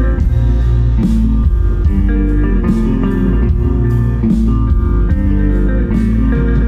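Live band playing an instrumental passage with no vocals: guitar over bass, with a steady beat of cymbal strokes.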